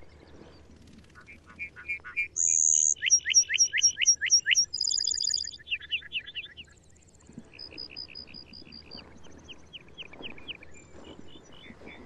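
Male lark bunting singing: a varied song of short notes, a buzzy trill, a run of repeated down-slurred whistles and rapid trills, then after a brief pause a second, quieter song of repeated notes and slurred whistles.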